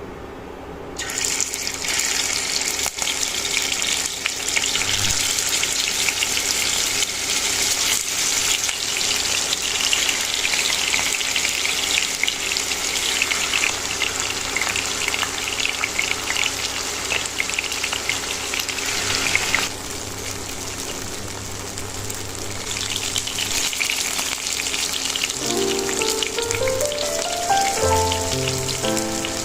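Food sizzling in hot oil in a pan. The sizzle starts about a second in, eases off for a few seconds about two-thirds of the way through, then picks up again. Soft background music runs underneath, with a melody coming in near the end.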